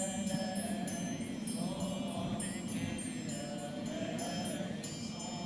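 Metal hand triangle struck again and again, its bright ringing overlapping, over soft group chanting.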